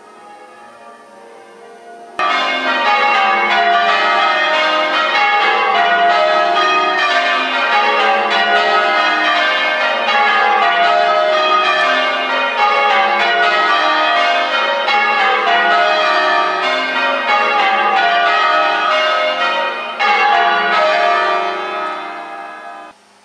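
Church tower bells being change-rung: a steady, rhythmic round of overlapping bell strikes that starts abruptly about two seconds in and fades near the end.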